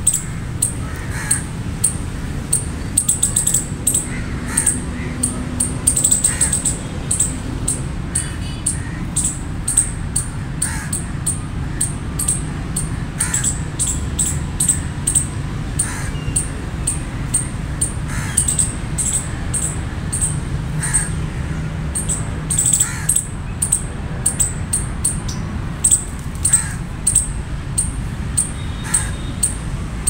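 Outdoor animal calls: a crow cawing now and then over a constant run of short, high-pitched chirps, with a steady low rumble underneath.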